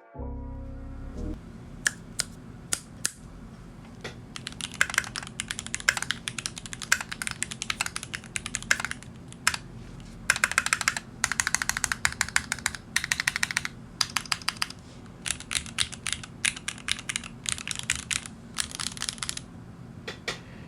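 Typing on a Keychron Q4 mechanical keyboard: runs of quick, sharp keystroke clacks with short pauses between them, over a faint steady low hum. This is the board in stock form, which the reviewer finds a bit hollow-sounding.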